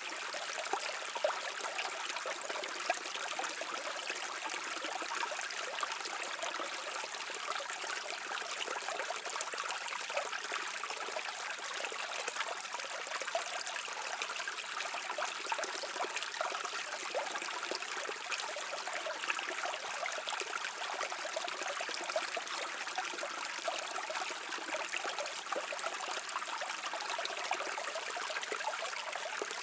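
A brook flowing over stones: a steady rush of running water, dotted with many small trickles and splashes.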